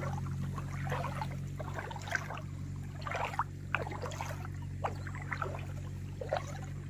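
Footsteps wading through the shallow water of a flooded paddy field, the water sloshing and splashing about once a step, roughly every second. A steady low hum runs underneath.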